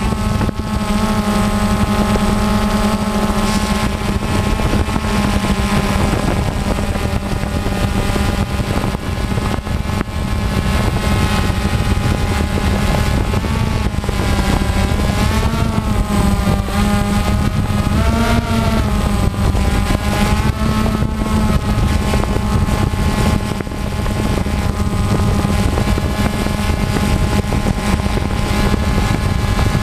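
DJI Phantom quadcopter's electric motors and propellers, heard through the GoPro mounted on it: a steady, loud buzz whose pitch wavers up and down several times midway through.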